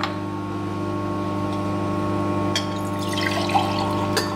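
Steel spoon stirring thin, runny semolina idli batter in a plastic bowl, wet and sloshy, with a few light clinks of the spoon against the bowl over a steady low hum.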